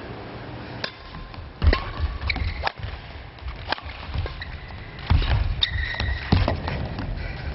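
Badminton singles rally: sharp racket strikes on the shuttlecock at irregular intervals, heavy thuds of lunging footwork, and brief rubber-sole squeaks on the court floor.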